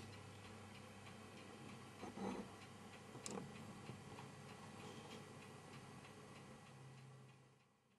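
Near silence: faint room tone with a faint, regular ticking and a couple of soft knocks about two and three seconds in.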